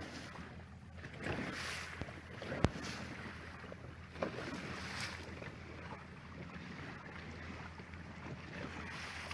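Boat engine running with a steady low hum, under wind and water noise. A single sharp knock comes about two and a half seconds in.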